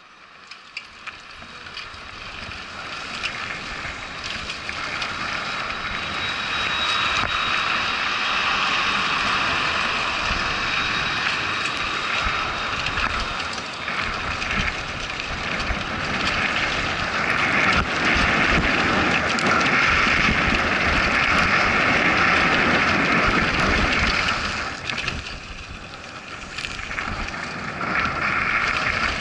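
Wind rushing over the camera microphone, with dirt crunching under the tyres and the bike rattling over bumps, on a downhill mountain bike descending a dirt trail. The noise builds over the first several seconds as speed picks up and dips briefly near the end.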